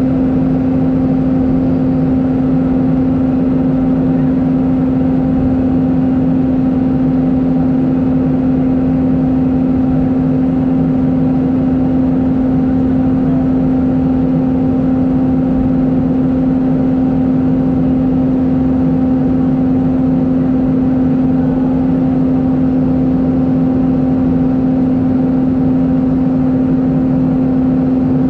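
Steady in-flight cabin drone of an Airbus A319, heard inside the cabin by the wing: engine and airflow noise with a constant low hum that does not change.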